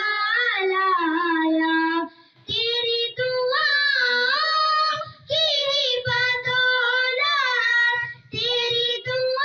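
Young girls singing an Urdu naat into microphones, a melodic line of long held, gliding notes with a short breath pause about two seconds in.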